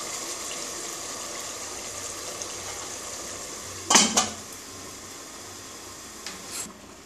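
Chicken simmering in gravy in a pot, a steady soft sizzle, then a stainless steel pot lid set down on the pot with a ringing metallic clank about four seconds in. After the clank the simmering is quieter under the lid, with a small clink near the end.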